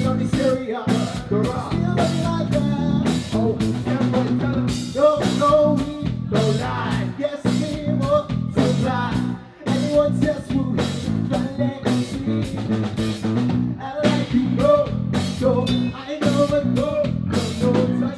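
A live band playing, with electric guitar and a drum kit keeping a steady beat.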